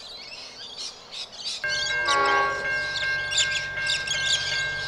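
Birds chirping, then about one and a half seconds in a railway level-crossing bell starts ringing, a steady high-pitched rapid ringing that carries on under the birdsong: the crossing warning for an approaching train.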